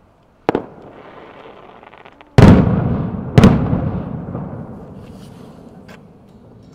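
Aerial firework shells bursting: a sharp bang about half a second in, a hiss, then two loud booms about a second apart, each fading in a long rolling echo.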